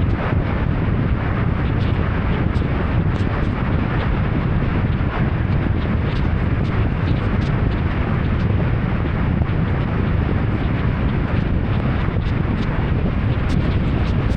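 A car driving in heavy rain: a steady wash of rain and tyre noise with a deep rumble, and scattered ticks of raindrops striking.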